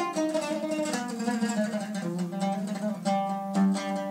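Oud played solo: a melodic run of plucked notes.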